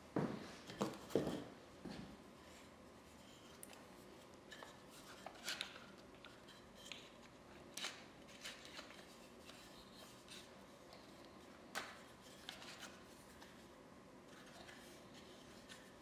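Hands handling a wooden plow plane and tools on a workbench: a few knocks and rustles in the first two seconds, then scattered light clicks and taps of wood and metal parts being fitted and turned.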